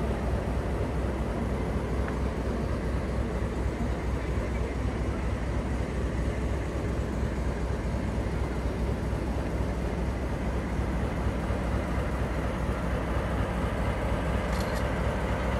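Steady low rumble of a vehicle running, with a brief faint click near the end.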